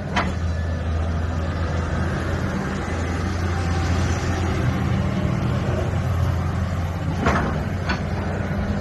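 LiuGong 925D crawler excavator's diesel engine running steadily under hydraulic load as the upper structure swings round and the boom and bucket move. A few sharp knocks from the machine come just after the start and twice near the end.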